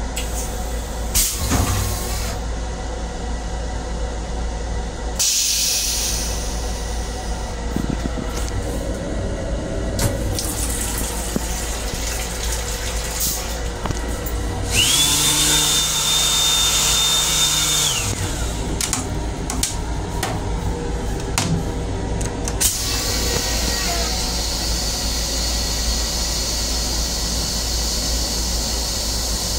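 LIRR M7 railcar toilet flushing: a loud flush about fifteen seconds in, with a high whine that rises in at its start and cuts off about three seconds later. A steady hiss follows for the last several seconds.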